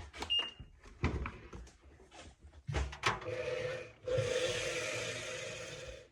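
LG front-loading washing machine beeping once as a button is pressed, followed by a few clicks. From about four seconds in, the machine runs for about two seconds with a steady hiss and hum that fades near the end.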